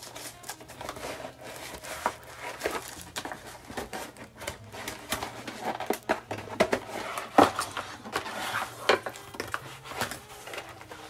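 Packaging crinkling and rustling with scattered small knocks and clicks as a flat iron is slid out of its wrapping sheet and lifted from its box.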